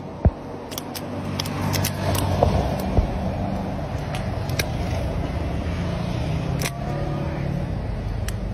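A vehicle engine running steadily, with scattered sharp metallic clicks as gloved hands work a bolted cable clamp.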